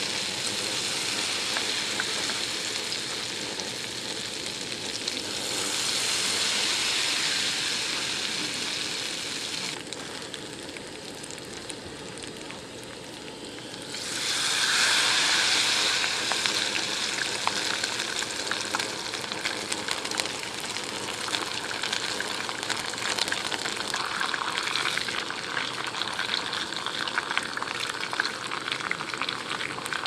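Battered vegetables deep-frying in a small pot of hot oil: a steady sizzle that swells when fresh battered pieces go into the oil, about five seconds in and again about fourteen seconds in.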